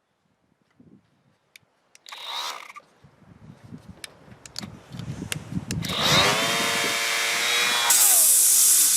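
DeWalt 20V cordless orbital sander: a few clicks and handling knocks, then about six seconds in the motor spins up, its pitch climbing quickly, and runs on at speed, louder near the end. This is the faulty sander that runs but quits as soon as it touches something.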